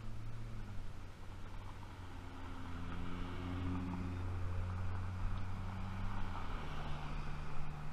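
A car driving past on the road, its low engine hum building to its loudest about four seconds in and shifting in pitch near the end.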